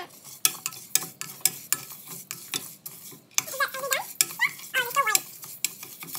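A wooden spatula stirs and scrapes whole urad dal grains around a dry stainless steel pressure-cooker pan, with repeated sharp clicks and rattles of the spoon and grains against the metal. The grains are being dry-roasted until light brown.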